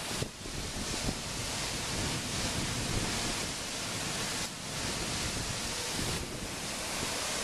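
Strong, gusting thunderstorm wind and heavy rain, with the wind buffeting the microphone in an uneven low rumble.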